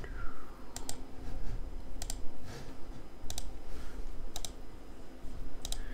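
Computer keystrokes: about five short, sharp clicks spaced a second or so apart, over a steady low hum.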